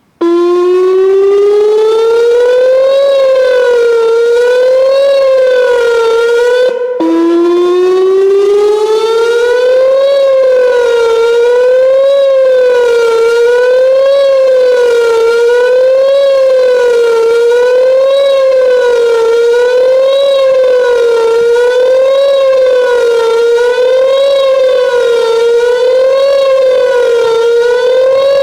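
Whelen WPS-2910 electronic outdoor warning siren sounding the Attack signal: it winds up from a low pitch, then wavers up and down about once every two seconds. It breaks off briefly about seven seconds in and winds up again.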